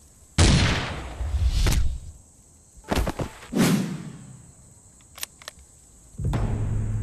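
Rifle shots in a war-drama soundtrack: about five shots over the first four seconds, each with a long echoing tail, then two light clicks. Low, dramatic music with drums comes in near the end.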